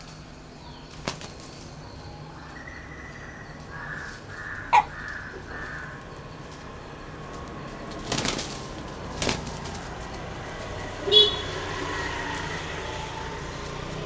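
Two roosters fighting in dry undergrowth, with short bursts of wing flapping about eight and nine seconds in and a few short, sharp calls, the loudest about eleven seconds in.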